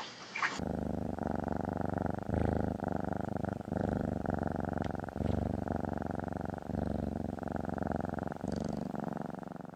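Cat purring close up, a steady pulsing rumble broken by short pauses at each breath. It starts suddenly about half a second in.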